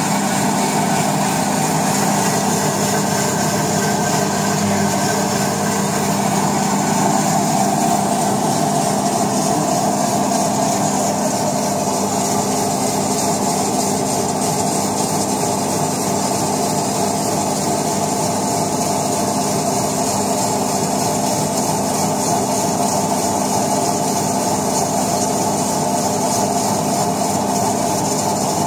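Şahveli GDM-06 tantuni chopping machine running steadily, its motor and blade set turning with an even mechanical hum.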